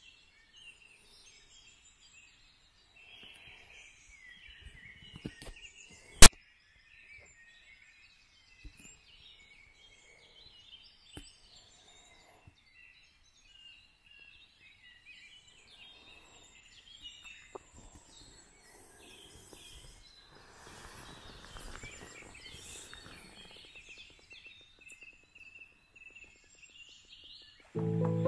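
Faint chorus of small birds singing in woodland, many short chirps and trills overlapping, with a single sharp click about six seconds in. Music comes in near the end.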